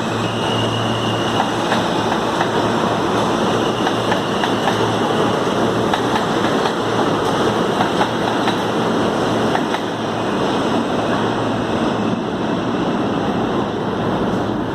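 New York City subway train running through the station: a steady, loud rumble of wheels and rail noise with faint scattered clicks.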